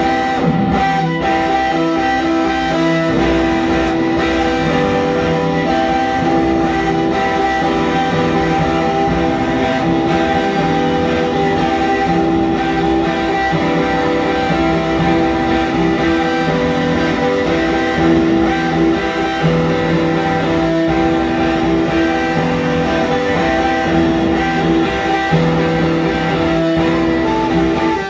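Electric guitar played live, long held notes layered over one another, the pitches shifting every few seconds.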